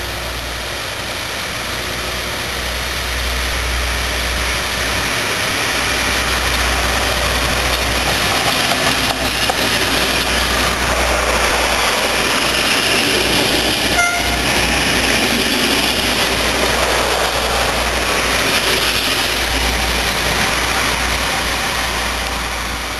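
Three-car diesel multiple unit (UTD) pulling out of a station and passing close by: its diesel engine and wheels on the rails grow louder to a peak a little past halfway, then slowly fade as it moves away. A brief high tone sounds at the loudest moment.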